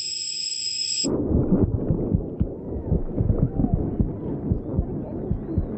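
A high steady whine over hiss cuts off sharply about a second in. It gives way to a dense, muffled low rumble with irregular soft thuds: a sound-design imitation of the mother's body noises as heard from inside the womb.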